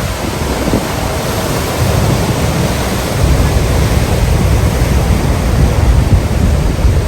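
Ocean surf and gusting wind, the wind buffeting the microphone as a heavy low rumble that grows louder about three seconds in.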